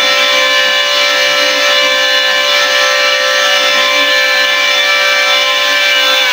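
Powerhouse 700-watt electric hand planer running at full speed as it is pushed along a wooden board, its motor and cutter drum giving a steady high whine over the rasp of the blades shaving wood.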